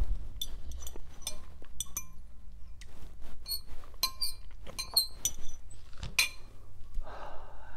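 Metal fork clinking against a glass bowl while stirring and picking up noodles: repeated sharp clinks with short ringing tones, the loudest about six seconds in.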